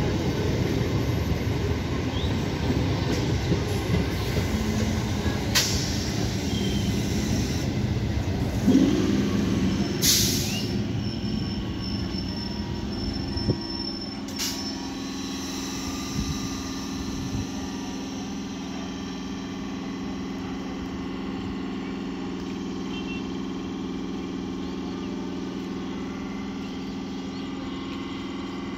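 Electric multiple unit local train coaches running past, wheels rumbling on the rails with a few sharp clanks. About halfway through, the rumble gives way to a quieter, steady electrical hum from the EMU standing or creeping slowly.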